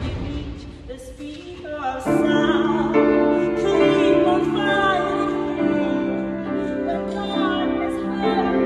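A woman singing to grand piano accompaniment; the music is quieter for about the first two seconds, then voice and piano come in louder and fuller.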